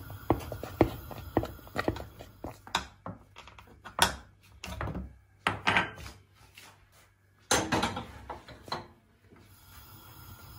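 Wooden spoon stirring and beating thick cooked wheat porridge in a stainless steel pot, knocking about twice a second. After about two seconds the knocks turn irregular, with a burst of clatter later on as kitchenware is handled.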